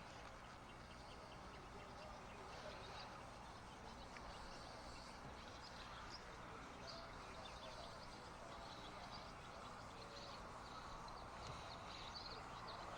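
Faint steady outdoor background noise, with a few faint high chirps scattered through it.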